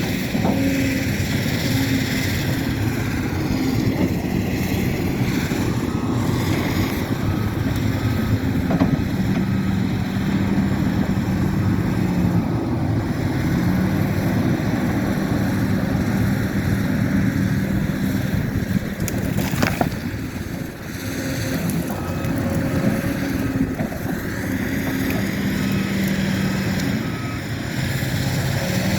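Excavator's diesel engine running steadily, its low hum shifting slightly in pitch as it works, with a single sharp knock about two-thirds of the way through.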